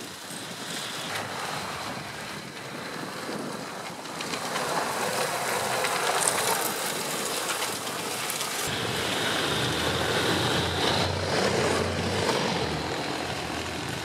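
Small tracked MTT skid-steer vehicle running over snow, with its drive and tracks going and wind noise on the microphone. It grows louder about four seconds in, and the sound shifts abruptly near nine seconds as a low hum comes in.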